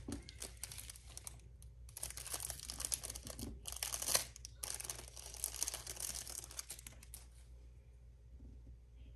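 Packaging being crinkled and torn open in a run of rustling bursts that stop about seven seconds in.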